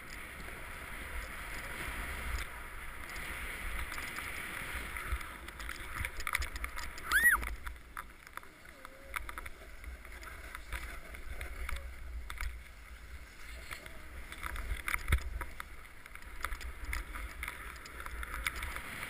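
Snowboard sliding and scraping over packed snow, heard from a camera on the rider, with a low rumble of wind on the microphone and scattered clicks. A brief sharp squeak-like sound about seven seconds in is the loudest moment.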